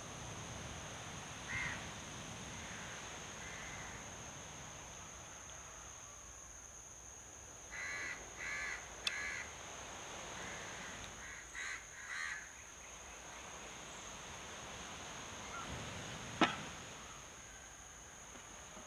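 Crows cawing: one caw, then a run of three, then two more, over a steady high-pitched insect drone. A sharp knock sounds near the end.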